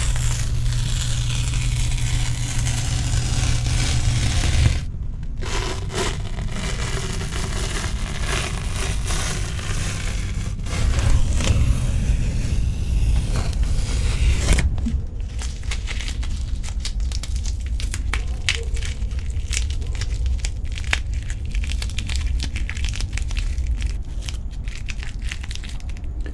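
Painter's masking tape being peeled off freshly painted camper walls, close to the microphone: a continuous ripping tear full of small crackles. It comes in several pulls, with breaks about five and fifteen seconds in, over a steady low rumble.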